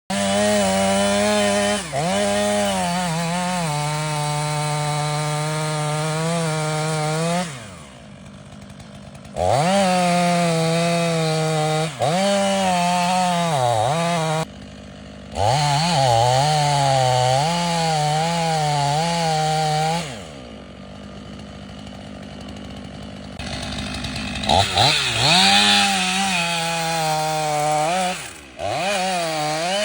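Stihl 500i two-stroke chainsaw cutting a large red oak, running at high revs with its pitch dipping and recovering again and again as the chain bites into the wood. It drops off several times, about 8 s in and again around 20 s, then comes back to full throttle.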